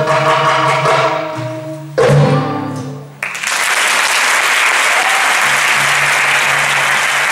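Live band with saxophone, oud and percussion playing the last held notes of a piece and ending on one loud final hit about two seconds in, which rings out and fades. About a second later the audience breaks into steady applause.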